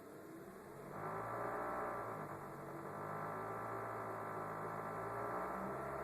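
Peugeot 207 Compact engine running cold, with a steady drone that gets louder about a second in. The noise comes from loosely mounted power steering fluid lines vibrating against the running engine, as the workshop eventually found.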